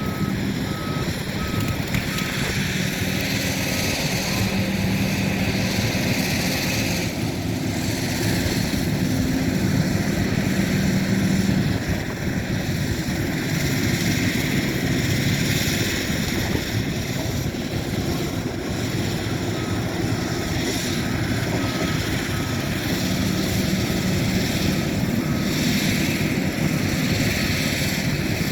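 Heavy-equipment diesel engine of an excavator running steadily, its engine note shifting up and down as the machine works.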